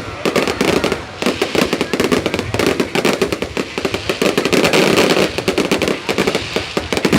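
Fireworks display: a dense, continuous barrage of bangs and crackling bursts, many in quick succession.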